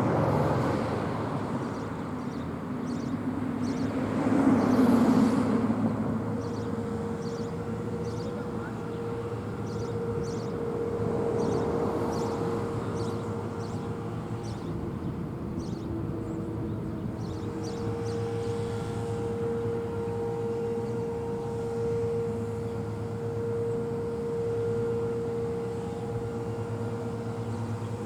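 Road traffic passing by, the loudest pass about four to five seconds in, with a distant outdoor warning siren holding one steady tone from about six seconds in that slowly swells and fades.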